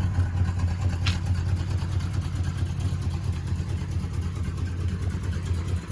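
Oldsmobile 350 two-barrel V8 idling steadily with a low, even exhaust rumble. A brief click comes about a second in.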